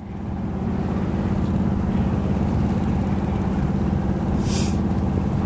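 Albin Vega 27 sailboat's inboard engine running steadily under way, a low pulsing hum that fades in at the start. A brief hiss comes about four and a half seconds in.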